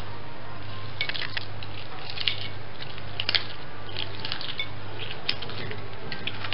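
A small knife scraping and clicking inside a cut lime half and against a plate, a scatter of short scrapes and clicks, over a steady low hum.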